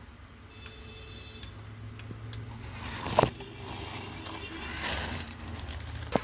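Battery-powered remote-control toy monster truck driving across a tile floor, its small electric motor and gears whirring as it speeds up and slows, with one sharp knock about three seconds in.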